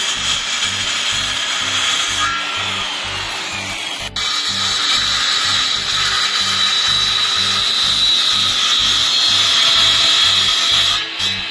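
Tacklife 12-amp circular saw running and cutting through a wooden board, with a steady high blade whine over the noise of the cut. The sound drops out for an instant about four seconds in, and the saw stops near the end.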